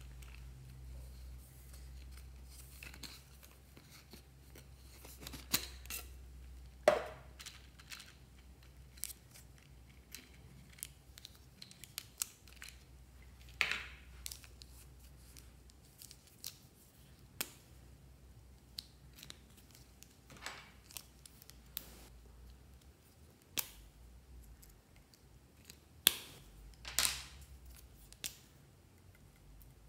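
Plastic felt-tip marker pens being handled: the pens click against each other and caps snap off, giving sharp, irregular clicks and snaps a second or so apart.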